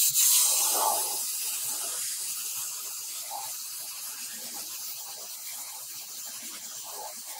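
Black spray paint hissing steadily from the nozzle as it coats a motorcycle side cover. The hiss starts suddenly and eases slightly as it goes on.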